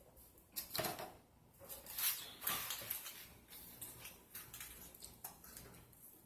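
Close-up eating sounds: lip smacking and wet chewing on chicken wings, an irregular run of smacks and clicks, loudest about a second in and again about two seconds in.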